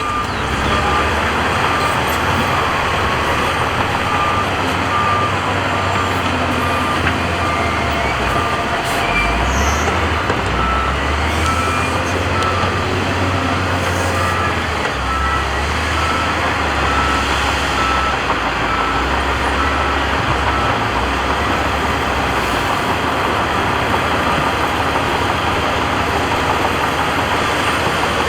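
Diesel engines of heavy earthmoving machines running and changing load, with a reversing alarm giving a steady series of short beeps that stops about two-thirds of the way through.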